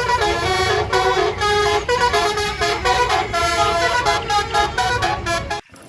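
Indonesian "telolet" bus horn, a multi-tone musical horn, playing a melodic tune of changing notes. It cuts off suddenly near the end.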